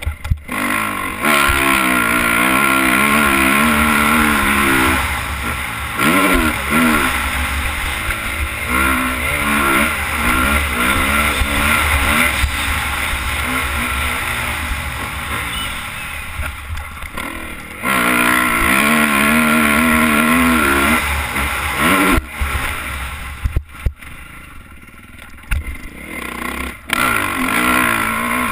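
Motocross dirt bike engine revving hard and shifting up through the gears, the throttle rolled off and opened again over and over. Heard from the helmet-mounted camera, with wind noise throughout.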